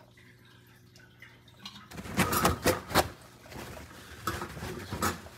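Stainless steel dog bowl handled over a kitchen sink. Quiet for about two seconds, then a run of sharp metal clanks and knocks, four in quick succession and a few more after.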